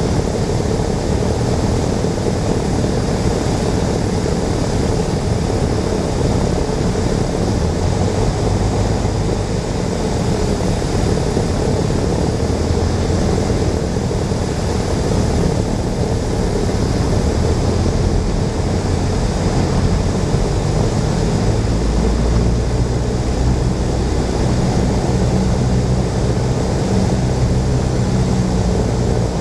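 Cessna 172's piston engine and propeller running inside the cabin, with a steady rush of airflow, on approach to land. The low engine note shifts twice, about a quarter of the way in and again about two-thirds in.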